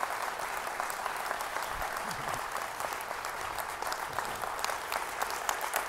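Large audience applauding steadily after a speech: a dense, unbroken clapping.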